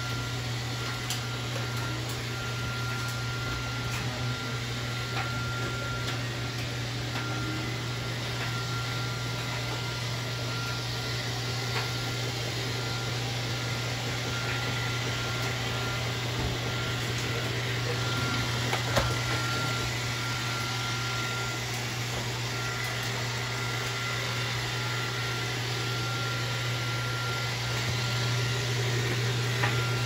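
LG top-load washing machine running with its drum turning the load of clothes: a steady low motor hum, with a faint higher whine that comes and goes.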